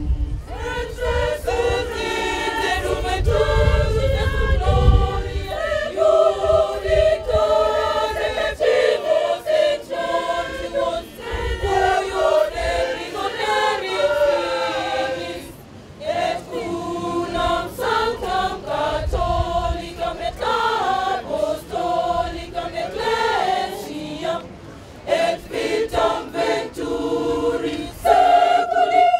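Church choir of women singing a hymn together in several voice parts, with a brief drop in loudness about sixteen seconds in.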